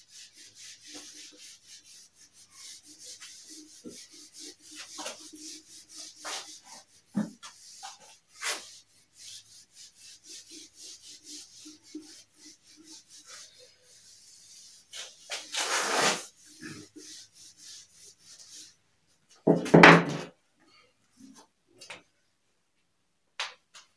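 A marker-covered whiteboard being wiped clean with a duster: a long run of quick scratchy rubbing strokes, broken by two louder brief noises near the end.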